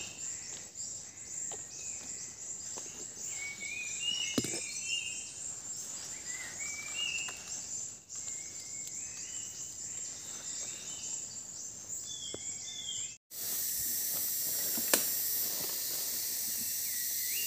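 A chorus of tropical forest birds calling over one another in short chirps and whistles, over a dense high insect-like chatter. About 13 s in the sound cuts out for an instant and switches to a steady hiss with one sharp click, with bird calls back at the end.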